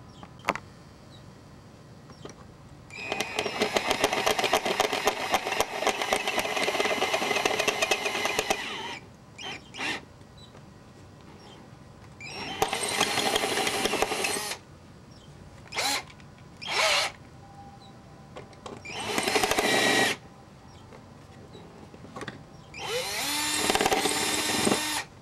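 Cordless drill with a twist bit running in bursts, drilling out the hole in a metal elevator control horn to take a brass eyelet bushing: one long run of about six seconds, then several shorter bursts.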